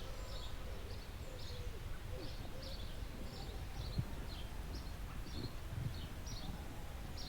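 Woodland birds calling, short high chirps repeating about twice a second, over a steady low rumble.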